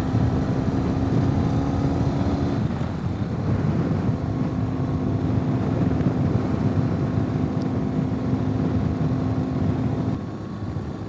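Ural sidecar motorcycle's air-cooled flat-twin engine running at a steady cruise, with heavy wind rush over the microphone. The engine note drops away near the end.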